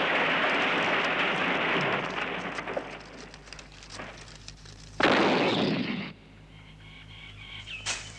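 Sound effects for a crashed cartoon biplane: a rushing noise that dies away over the first few seconds, then a sudden loud explosion about five seconds in that fades within a second, followed by faint crackling.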